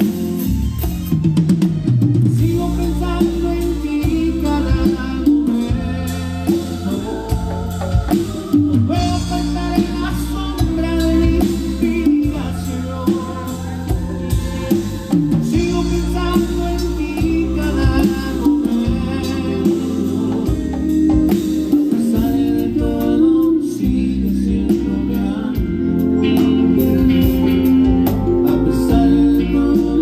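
A live band playing at a sound check: electric guitar over a drum kit and hand percussion, with a voice singing.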